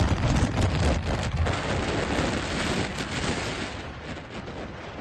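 Sandstorm wind buffeting the microphone: a heavy, gusting rumble with a hiss across the top, easing somewhat in the second half.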